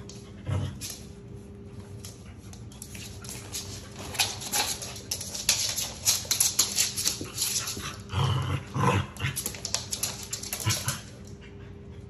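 A Pomeranian and a Keeshond play-fighting: a run of snarls, growls and short yaps, thickest in the middle, with the loudest outburst about eight seconds in, mixed with scuffling of paws on the floor.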